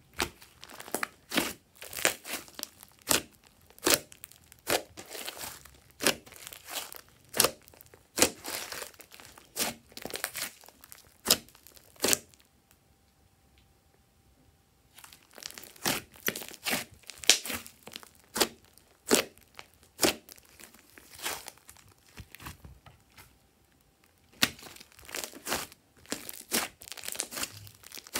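Glossy slime being squished and pressed by hands: irregular sticky pops and crackles as air pockets in the slime burst. The popping stops twice for a few seconds, once near the middle while the slime is lifted and drizzled back onto itself.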